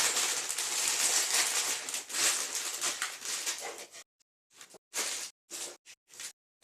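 Plastic bags of Lego pieces rustling and crinkling as they are handled, with the pieces shifting inside; a steady crinkle for about four seconds, then about five short crinkles with pauses between.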